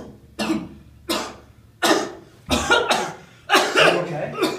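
A young man's acted smoker's coughing fit: about six harsh coughs, the later ones longer and running together.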